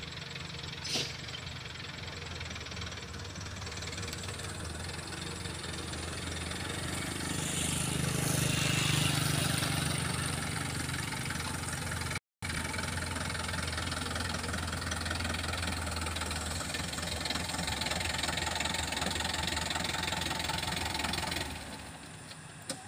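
Engine of a tractor-style oil palm fruit hauler running steadily at idle, a little louder for a few seconds about a third of the way in. There is a short click about a second in and a brief dropout near the middle.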